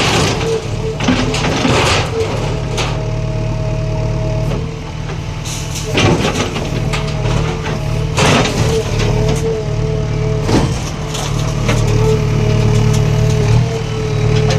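A heavy diesel engine running steadily with a steady whine above it, while sharp knocks and crashes ring out every two to three seconds: heavy machinery breaking up a building.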